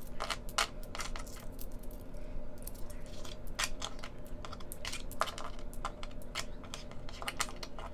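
Loose coins clinking and clicking against one another as they are slid across paper on a table and counted, in irregular taps, with a faint steady hum underneath.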